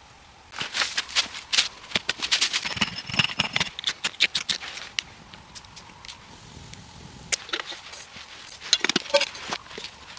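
Irregular sharp clicks and knocks, in a dense run over the first few seconds and a second shorter run near the end.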